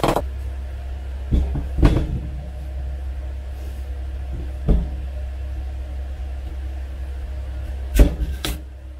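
Kitchen knife cutting through raw kabocha squash and knocking on a wooden cutting board: five separate knocks, the loudest near the end, over a steady low hum.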